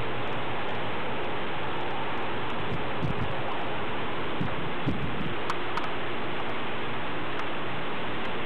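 Steady rushing storm noise, an even hiss without pitch. A few faint ticks and two soft low knocks come about three and five seconds in.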